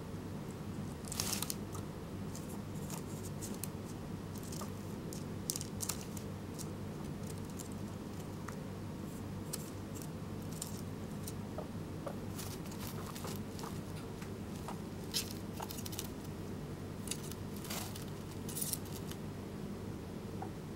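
Scattered short rustles and scratches from a young guinea pig moving about on paper and bedding inside its netted pen, over a steady low hum.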